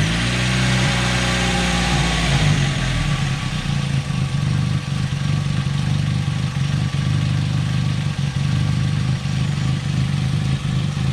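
A Kia compact's four-cylinder engine running just after start-up. The idle eases down from its first flare over about two seconds, then holds steady. It is running on thick used diesel-truck oil, and the idle is leveling out.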